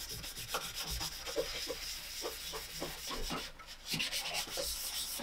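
Fine 600-grit foam sanding pad rubbed by hand in quick back-and-forth strokes over a white plastic toy kitchen piece. The plastic is being scuffed so paint will hold without primer. There is a brief pause in the strokes a little past halfway.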